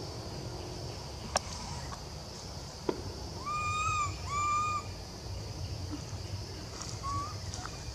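Young macaque crying, two clear, even-pitched coo calls of about half a second each a little before halfway, and a short third one near the end: an infant's distress cries for its lost mother. A steady high insect hiss runs behind, with two sharp clicks in the first three seconds.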